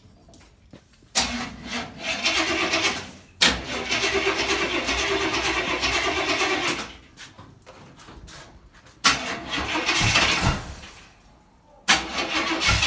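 Starter cranking the 7.4-litre V8 of a 1980 Pontiac Trans Am on a cold start, in several tries of two to three seconds each with short pauses between, without the engine settling into a steady run.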